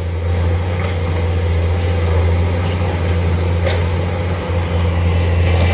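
A large diesel engine running steadily, a low, even drone with a brief dip about four and a half seconds in.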